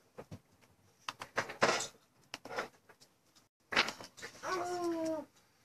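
Scattered light clicks and taps, as of a computer mouse and keyboard being used. Near the end comes a short pitched sound that drops at its close.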